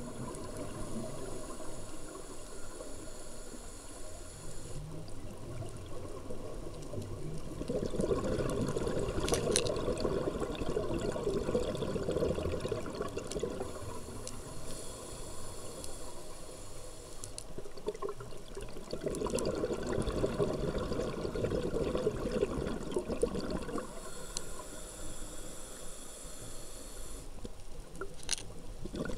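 Scuba diver breathing through a regulator underwater: slow breaths about every ten seconds, each a quieter, thin-sounding inhalation followed by several seconds of rushing, bubbling exhalation.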